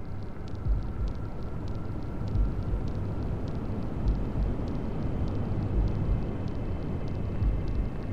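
Steady hair-dryer white noise with a heartbeat track laid over it: a low thump about every second and three quarters, five beats in all.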